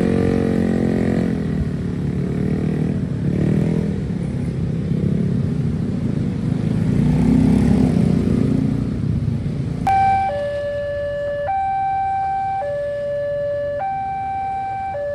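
Road traffic, mostly motorcycles and cars passing. About ten seconds in, a railway level-crossing warning alarm switches on: an electronic siren alternating steadily between a high and a low tone, each held about a second, signalling that a train is approaching.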